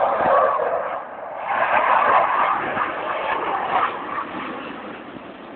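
Jet engine noise from Blue Angels F/A-18 Hornets passing overhead. It is loud at first, dips briefly, swells again for a couple of seconds, then fades away.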